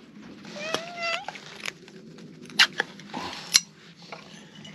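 Tortoiseshell cat meowing once, a single rising call about half a second in, as it asks for more food. A few sharp clicks follow in the second half.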